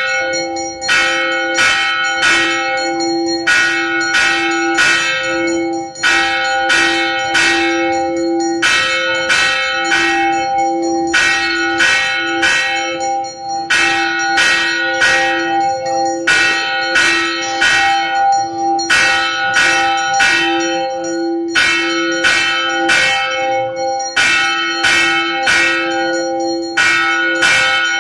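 Temple bells ringing throughout the aarti lamp offering, struck in runs of several quick strokes that repeat about every two and a half seconds, their tones ringing on between runs.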